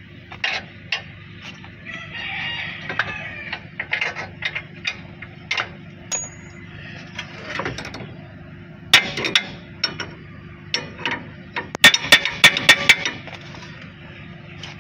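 Hand tools working on the Suzuki Carry's front suspension: scattered metal clicks and knocks, with a quick run of about seven sharp clicks about twelve seconds in.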